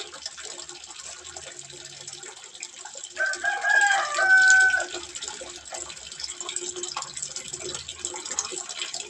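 Water trickling steadily into a small fish pond. About three seconds in, a rooster crows once, a call of under two seconds and the loudest sound.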